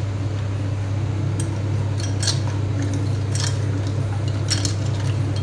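A metal spoon stirring ice cubes in a glass, with irregular clinks against the glass and ice starting about a second in, over a steady low hum.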